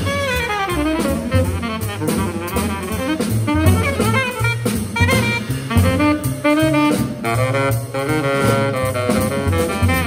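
Live jazz trio: a tenor saxophone plays a quick, flowing melodic line over plucked double bass and a drum kit keeping time on the cymbals.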